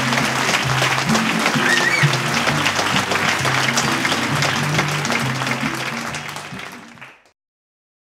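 Closing theme music with a bass line of held notes under audience applause, with a short whistle from the crowd about two seconds in; the sound fades out to silence about seven seconds in.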